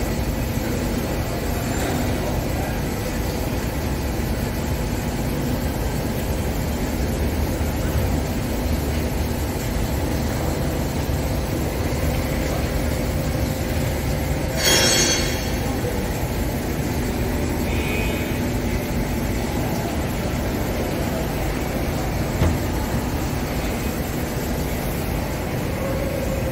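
Mori Seiki MH-633 machining centre running with coolant flooding from its spindle inside the enclosure: a steady mechanical din with a spray hiss. About fifteen seconds in, a brief, louder hiss.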